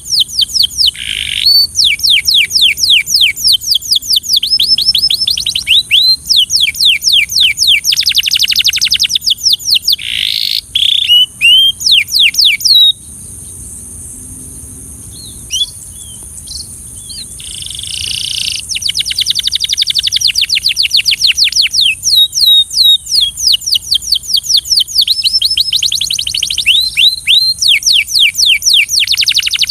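Canary singing: fast trills of rapidly repeated falling whistled notes, broken near the middle by a lull of a few seconds with only scattered notes, then resuming in long rolling trills.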